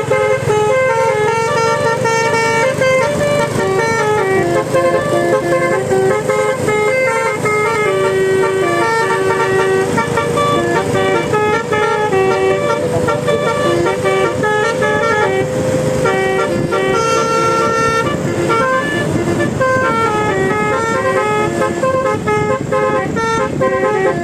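Bus telolet 'Basuri' musical horn playing a fast tune of stepped notes, with a lower note held for several seconds past the middle, over a low rumble.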